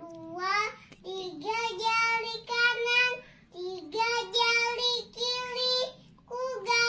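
A young girl singing an Indonesian children's action song unaccompanied, in short sung phrases with brief breaths between them.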